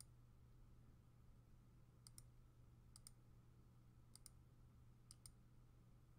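Faint computer mouse clicks, about five paired press-and-release clicks roughly a second apart, over a faint steady low hum.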